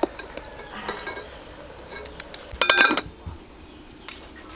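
Metal cooking utensils clinking against a metal pot as a whole chicken is stirred and turned, with small scattered taps and one louder ringing clank a little past halfway.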